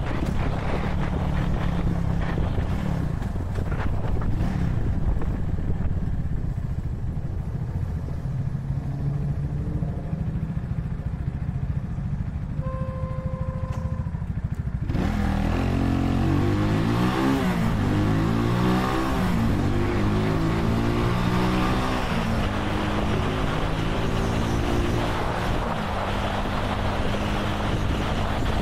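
Vitacci XMT 250 motorcycle engine and road rush slowing to a near-stop idle, then accelerating hard away about halfway through, the engine pitch rising through each gear and dropping at several gear changes.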